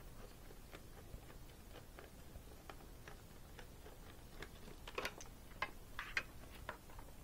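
Light clicks and taps of a screwdriver working on plastic facemask clips of a football helmet, with a few louder clacks about five to six seconds in as the facemask comes free of the shell.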